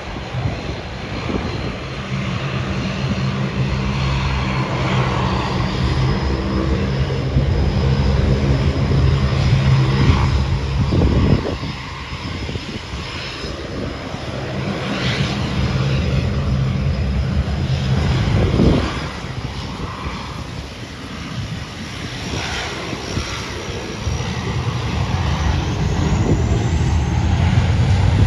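Turboprop engines and propellers of a DHC Dash 8-400 airliner running as it moves along the runway: a steady low propeller drone with a thin high engine whine that climbs in pitch near the end.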